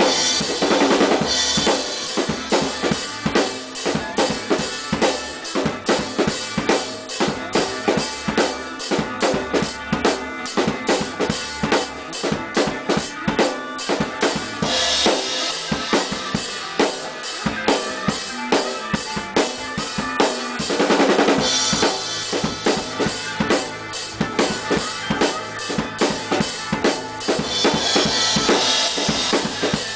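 Acoustic drum kit played fast and continuously: rapid snare and bass drum hits under cymbals, with a crash cymbal washing over the beat a few times.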